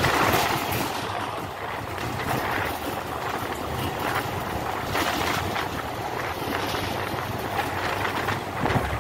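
Steady outdoor rush of road traffic, with wind buffeting the microphone.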